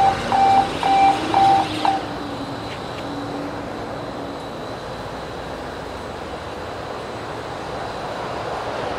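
Electronic warning beeper sounding about twice a second, over a low tone that drifts slightly in pitch; it stops about two seconds in, leaving a steady, fainter industrial background noise that grows a little louder near the end.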